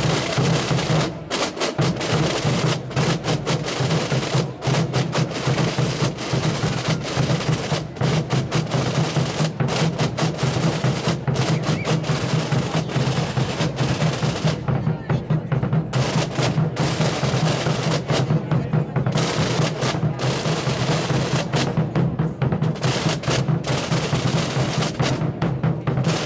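Massed Aragonese Holy Week drumming from tambores and bombos: a fast, continuous roll from the snare-like tambores over steady, deep beats of the big bass drums. The roll thins out briefly a few times in the second half.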